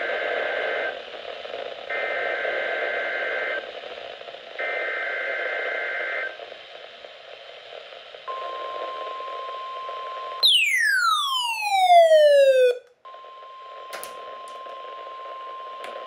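Midland NOAA weather radio receiving a Required Weekly Test: three warbling bursts of SAME digital header tones over static, then the steady 1050 Hz warning alarm tone. About ten seconds in, a loud falling siren-like sweep cuts in for about two seconds, then the steady tone returns.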